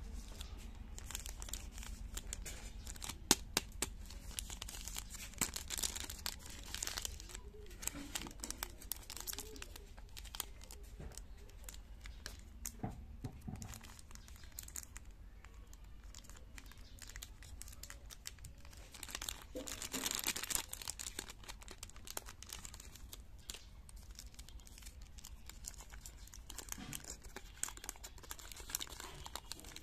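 A chocolate-bar wrapper crinkling and tearing as it is opened by hand, then the inner foil-paper wrap rustling as it is peeled back from the bar. Irregular crackles throughout, with louder bursts of crackling around six and again around twenty seconds in.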